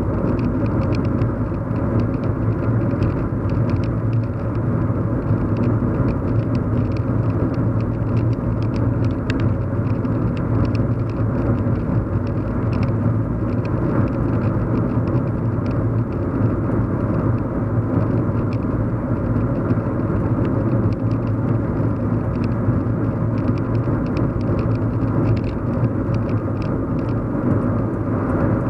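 Steady low hum and rumble of a car driving, heard from inside the cabin: road and engine noise with faint scattered ticks over it.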